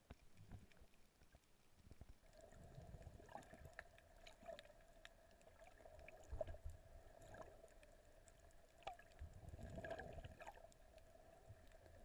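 Faint, muffled underwater sound through an action-camera housing: low water rumbles and light clicks from the swimmer's movement, with a faint steady hum that starts about two seconds in.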